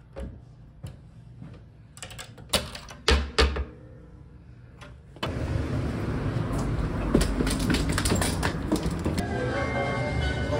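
Small brass padlock and steel hasp on a wooden locker clicking and clinking as it is unlocked, with a few heavier knocks of the locker about three seconds in. About five seconds in, a steady hum of street traffic takes over.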